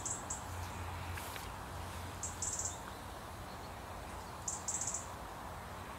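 Common kingfishers calling in flight: three short, shrill, high-pitched trills about two seconds apart, over a low steady background hum.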